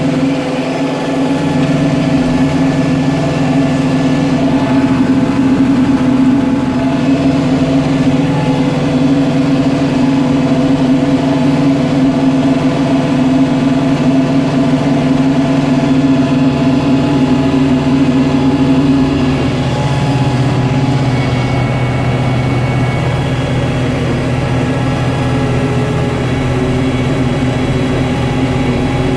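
Kubota tractor engine and its loader-mounted hydraulic snowblower running steadily, heard from inside the cab. About two-thirds of the way through, the engine note shifts a little lower and stays there as the blower throws snow.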